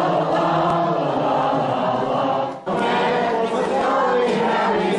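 A group of voices singing together, with a short break for breath about two and a half seconds in.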